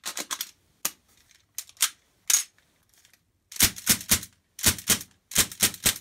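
Sig Sauer MPX CO2 air rifle: a few scattered sharp clicks, then from about three and a half seconds in, three quick strings of shots fired in rapid succession with short pauses between them.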